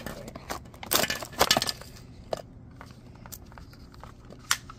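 Clear plastic clamshell packaging crackling and clicking as it is handled and pried open, loudest in a burst of crackles about a second in.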